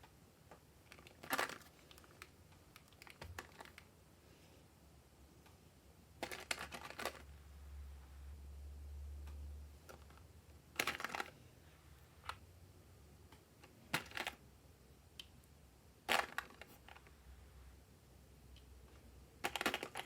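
Small magnetic balls clicking together in short clattering clusters every two to four seconds, as they snap into place.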